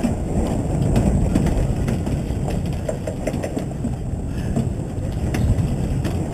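Steady low rumble of a sportfishing boat's engine running.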